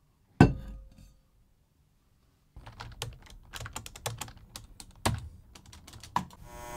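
A metal drinks bottle knocks once on a wooden desk, with a short ring, about half a second in. After a short silence comes fast typing on a computer keyboard, with a couple of louder clicks near the end.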